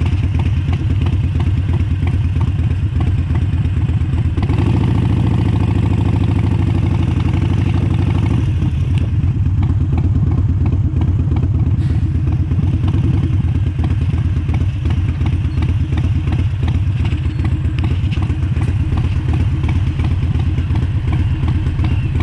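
Harley-Davidson Iron 1200's air-cooled 1200 cc V-twin engine running through an aftermarket Vance & Hines exhaust while riding. It gets louder and fuller for a few seconds about five seconds in, then settles back, and cuts off suddenly at the end.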